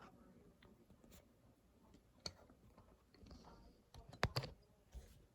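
A few faint scattered clicks and light handling noises, the sharpest double click about four seconds in.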